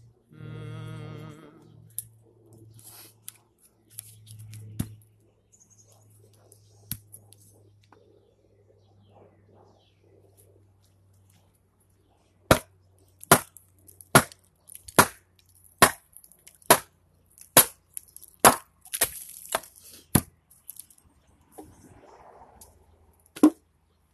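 Axe splitting a cherry log on a chopping stump: a run of about a dozen sharp wooden knocks, a little under a second apart and coming faster toward the end, starting about halfway through.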